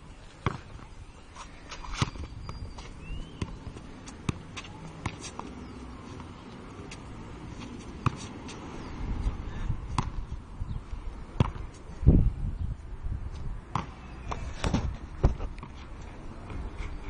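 A ball being kicked and bouncing on an outdoor hard court: scattered sharp thuds at irregular intervals, the loudest about twelve seconds in.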